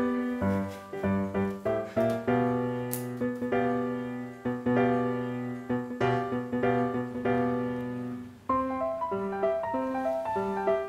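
Background piano music: a melody of struck notes that ring and fade, with a brief dip about eight and a half seconds in before a new phrase begins.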